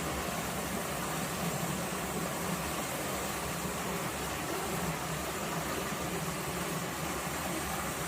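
A small stream flowing over rocks and stones, a steady, even rush of water.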